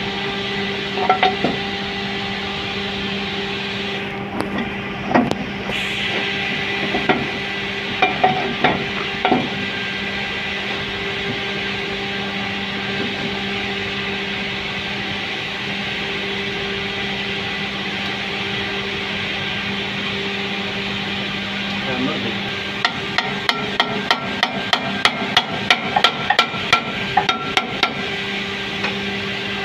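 Hand tools knocking on the metal of a cement roto packer's impeller housing while a worker tries to free the jammed impeller: scattered knocks at first, then a quick run of metallic taps, about three a second, near the end. Under it runs a steady machinery hum.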